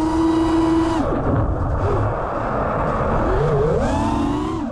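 FPV quadcopter's motors and propellers (iFlight Xing-E motors, Ethix P3 props) whining at a steady pitch, then dropping away about a second in as the throttle is released for an inverted yaw spin, leaving a rushing air noise with a wavering pitch. Near the end the whine glides back up as throttle returns to pull out of the move.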